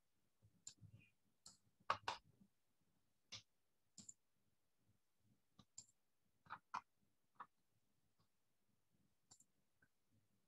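Sparse, irregular clicks of a computer mouse, about a dozen, the loudest a quick pair about two seconds in, over near silence.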